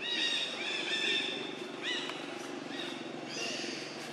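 Monkey giving a run of high-pitched squealing calls: short arched cries, the first and longest lasting about a second, then shorter ones about two and three and a half seconds in, over a steady low hum.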